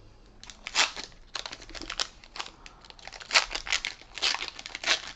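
Foil wrapper of a Pokémon Sword & Shield booster pack crinkling as it is handled and torn open: a run of irregular crackles and rustles.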